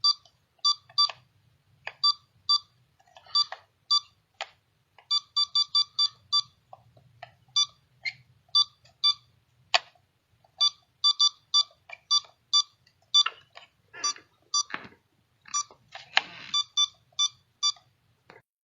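Electronic button beeps: many short, same-pitched beeps in irregular runs and quick pairs, as when keys on a device keypad are pressed, with a few sharper clicks among them.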